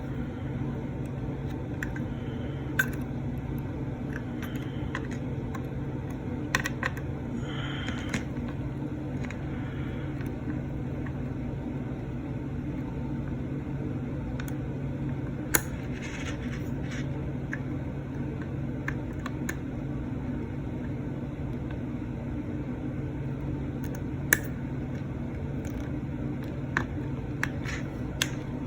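Small sharp clicks and taps of metal tweezers against a component and circuit board as a soldered part is wiggled loose under a soldering iron, a few seconds apart over a steady low hum.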